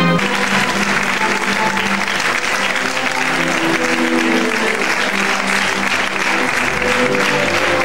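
An audience applauding steadily while music carries on underneath.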